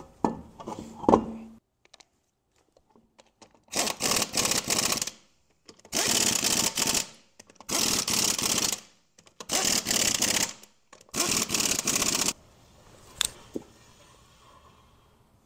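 Impact wrench running in the lug bolts of a BMW E46 wheel: five bursts of rapid hammering, each about a second long. Before them come a few clunks as the wheel is fitted to the hub, and a single click follows near the end.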